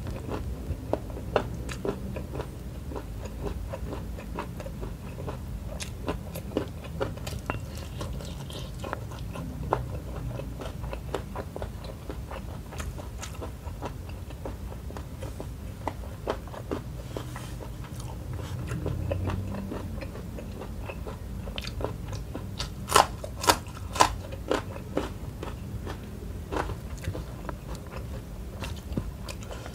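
Close-miked chewing and crunching of a mouthful of rice with shrimp and petai (stink bean) sambal, with wet mouth clicks. Three sharp crunches come close together about two-thirds of the way in.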